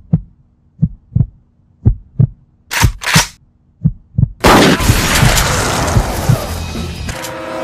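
Heartbeat sound effect: low paired thumps about once a second, with two short breathy hisses about three seconds in. About four and a half seconds in, a sudden loud bang breaks in and runs on as a rushing noise for about three seconds.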